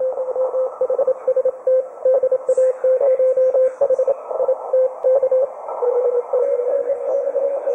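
Morse code (CW) received on the 40-metre band through a Perseus software-defined radio receiver: a tone keyed on and off in dots and dashes over shortwave band hiss. About six seconds in, a faster-sending station at a slightly lower pitch takes over.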